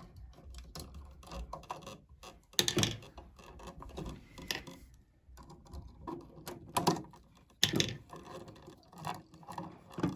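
Screwdriver and copper wires being worked on the terminal screws of a new electrical outlet: irregular small clicks and scrapes, with a few louder knocks.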